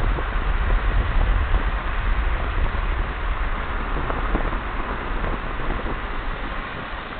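Wind buffeting the microphone over a steady low rumble of a moving car, as when filming out of its window. It eases off near the end.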